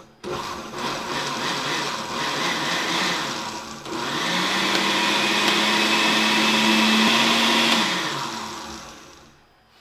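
Countertop blender with a glass jar pureeing chunky cooked strawberry compote into a smooth sauce. The motor starts, dips briefly about four seconds in, then runs louder with its hum rising slightly in pitch, and spins down near the end.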